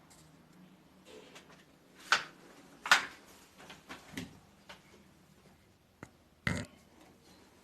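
A few separate sharp knocks and clicks, like hard objects being handled or bumped, with the loudest about two, three and six and a half seconds in. A faint low hum dies away around the start.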